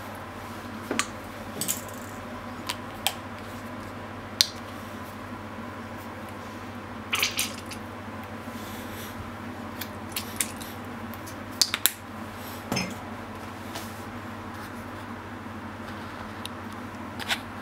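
A plastic ketchup squeeze bottle being squeezed over a bowl of food: scattered short clicks and squirts, a few of them longer and hissing, over a steady low hum.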